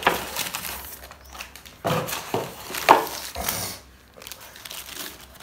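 Plastic packaging film crinkling and rustling as it is handled, in irregular bursts, loudest about two and three seconds in.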